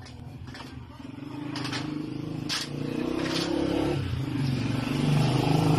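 A motor vehicle's engine running and growing steadily louder, with a few short scraping sounds over it.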